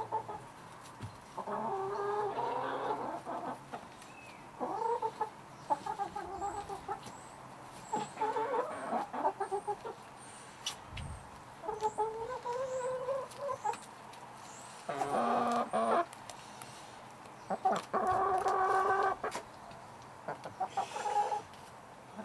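Domestic hen clucking and cackling in about seven separate bouts of drawn-out calls, each a second or two long with short pauses between. The loudest bouts come in the second half.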